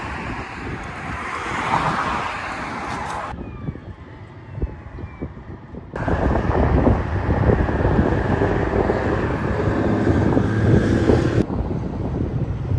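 Outdoor ambience of road traffic with wind on the microphone. It changes abruptly a few times, going quieter from about three seconds in and louder with a low wind rumble from about six seconds.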